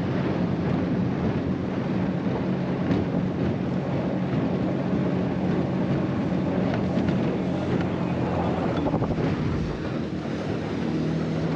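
Boat's outboard motor running steadily, with wind buffeting the microphone and water rushing past the hull.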